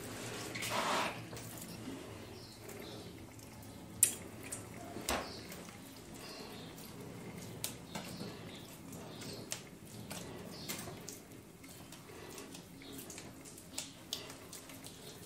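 Quiet splashing and dripping of water as balls of fresh cheese are handled in a pot and over a basin, with a few short knocks, the loudest about four seconds in.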